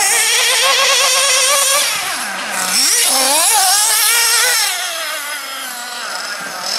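1/8-scale nitro off-road RC buggies' small two-stroke glow engines running at high revs with a high-pitched whine. The pitch wavers constantly, drops briefly about two seconds in and climbs again sharply, and the sound grows quieter in the last couple of seconds.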